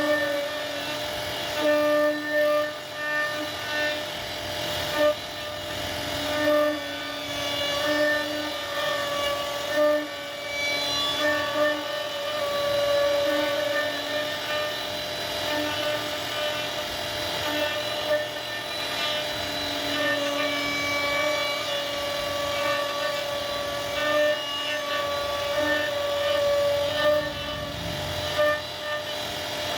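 CNC router spindle running at a constant high speed while its bit carves wood: a steady whine over a rough cutting noise, swelling and easing every second or two as the cutter's load changes.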